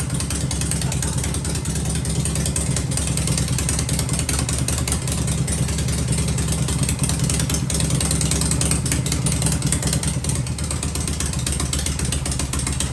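Harley-Davidson Shovelhead V-twin engine running steadily, its exhaust firing in an even, unbroken rhythm.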